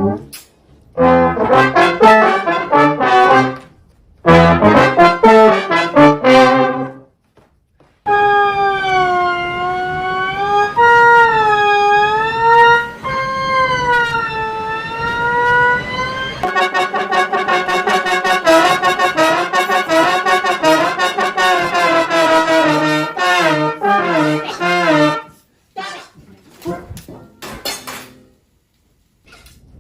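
Brass instrument sounds standing in for a person's voice, following the rise and fall and rhythm of speech in short choppy phrases. Partway through comes a longer run of held, wavering notes that slide up and down, then more quick phrases before it stops a few seconds before the end.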